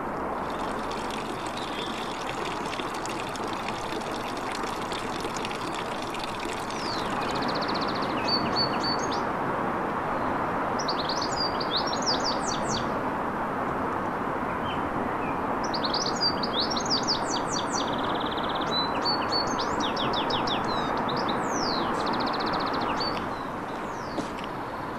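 Small songbirds twittering in clusters of quick, high sweeping chirps and short buzzy trills, over a steady rushing background noise that swells for most of the middle and drops back near the end.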